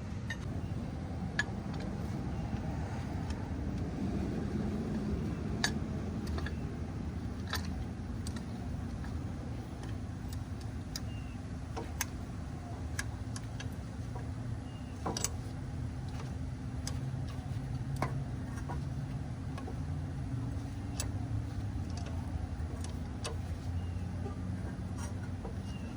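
Scattered sharp metallic clicks and taps of hand tools working on a car's front brake caliper, over a steady low hum.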